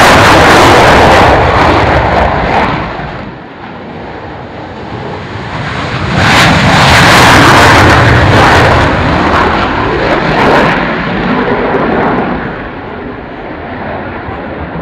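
Panavia Tornado GR4's twin RB199 afterburning turbofans at takeoff with reheat lit: a loud jet roar that dips about three seconds in, swells loud again around six seconds in, and fades over the last few seconds as the jet climbs away.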